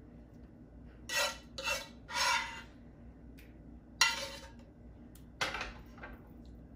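Metal spoon scraping tomato sauce out of a metal bowl: three short scrapes, then two sharp taps of the spoon against the bowl, the first about four seconds in and the second a second and a half later.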